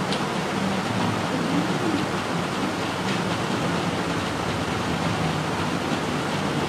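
A steady rushing hiss that holds at an even level, with faint voices underneath.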